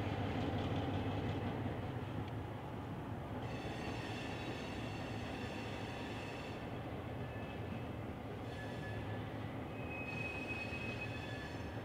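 EMD SW1200 switcher locomotive's twelve-cylinder two-stroke diesel running with a steady low rumble as it moves slowly around a curve. Steel wheel flanges squeal high-pitched against the rail, coming in about three and a half seconds in and again near the nine-second mark.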